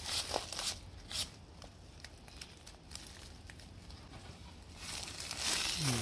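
Rustling and crinkling handling noises with scattered sharp clicks, quieter in the middle and louder again near the end, where a short low falling sound is heard.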